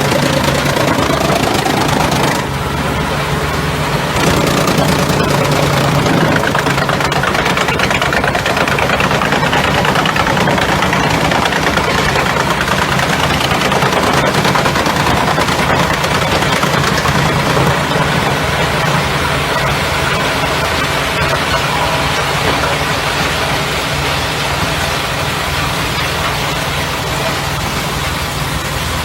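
Drum wood chipper and its diesel engine running under load, the engine drone buried under the dense noise of wood being shredded. The engine pitch rises briefly at the start.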